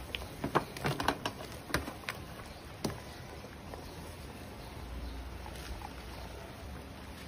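Sliced vegetables tipped from a metal tray into a pot of boiling broth: a quick run of clinks, knocks and small splashes in the first three seconds, then a steady low background noise.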